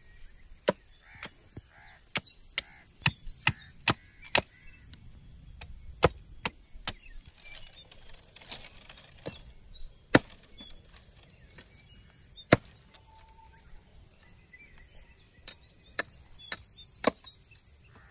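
Small wooden-handled hatchet chopping dry tree branches on the ground: sharp, irregular chops, several close together in the first few seconds and again near the end, with longer pauses in between.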